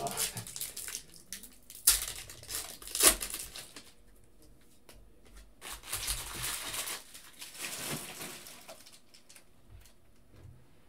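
Foil trading-card pack wrapper crinkling and being torn open, with two sharp snaps about two and three seconds in and more crinkling a few seconds later.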